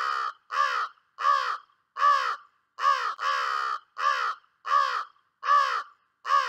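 A crow cawing over and over: about ten harsh caws in steady succession, roughly one every two-thirds of a second, one drawn out a little longer near the middle.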